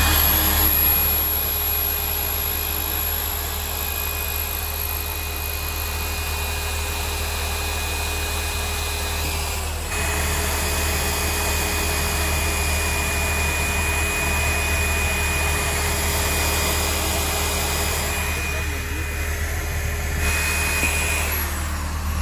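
Corded electric drill running steadily with a whine as it bores holes through a fibreboard car parcel tray. The motor dips and picks back up about ten seconds in, then winds down near the end.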